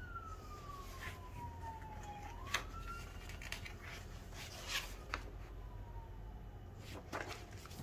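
A faint, distant siren wailing: a single tone sliding slowly down, then back up, then fading. Light taps and rustles of magazine pages being handled come and go.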